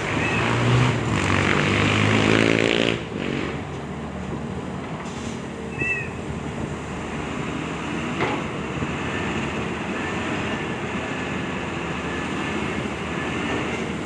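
Heavy diesel engine of construction machinery revving under load for about three seconds, its pitch rising, then settling to a steady run, with a sharp click about eight seconds in.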